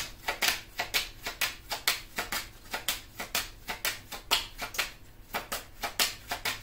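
A deck of tarot cards being shuffled by hand, a quick irregular patter of card slaps and flicks, about four or five a second.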